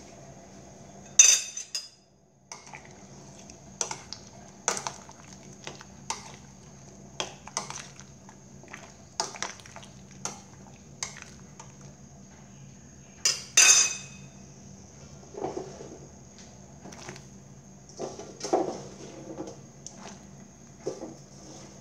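Metal spoon clinking and knocking against a stainless steel pot while stirring soup, in irregular taps. Two louder ringing clanks come about a second in and near the middle.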